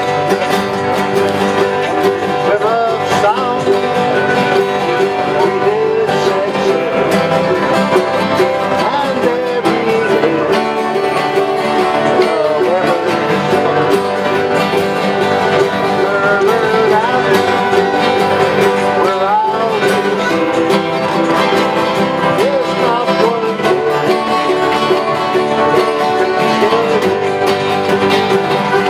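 A sea shanty group sings together, accompanied by strummed acoustic guitars and a small plucked stringed instrument; the music continues steadily with no break.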